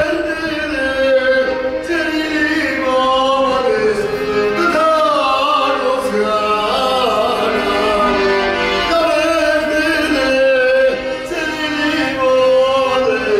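Accordion playing a melody over sustained chords.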